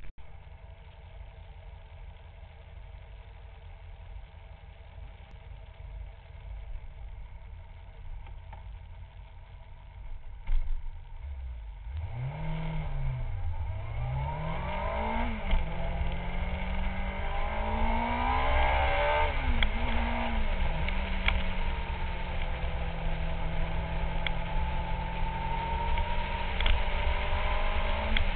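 Kawasaki 600 cc inline-four sport-bike engine running steadily at low revs, with a single clunk about ten seconds in. Then it pulls away and accelerates up through the gears, the engine note rising and dropping with each change, before settling to a steady cruise.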